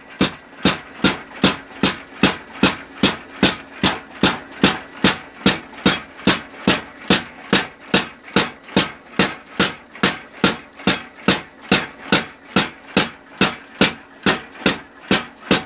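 Home-built 25 kg belt-driven mechanical power hammer pounding red-hot steel, a steady run of sharp blows at about two and a half a second, over a faint steady hum of the machine running.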